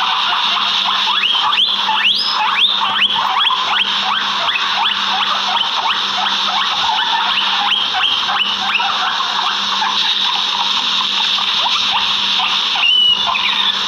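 Steady, dense outdoor animal chorus with a series of short rising chirps, about two a second, from about a second in until about nine seconds in, and a brief louder call near the end.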